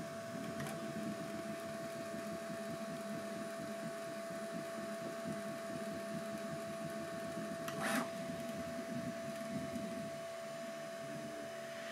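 Bambu Lab A1 Mini 3D printer printing PETG: its stepper motors whir in constantly shifting pitches as the print head and bed move, over a steady high tone. There is a brief, louder hiss-like burst about eight seconds in.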